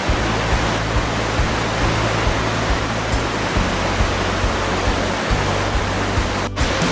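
Steady rush of water pouring over a waterfall, cutting out for a moment near the end.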